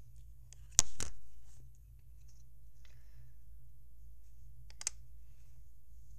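Handling noise of the recording phone being set down: a sharp knock about a second in, quickly followed by a second one, then a single light click near the end, over a low steady hum.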